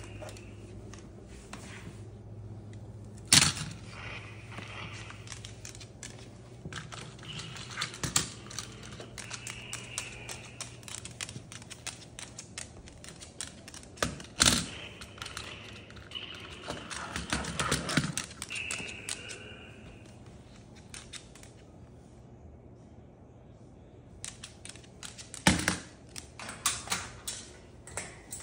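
A Moluccan cockatoo chewing on and knocking about a plastic toy truck and the furniture. Irregular beak clicks and taps run throughout, with four loud sharp knocks spread across the stretch and a few short high squeaks.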